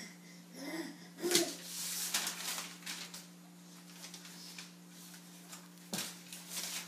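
A baby making two brief cooing vocal sounds, followed by rustling and a single sharp knock near the end, over a steady low electrical hum.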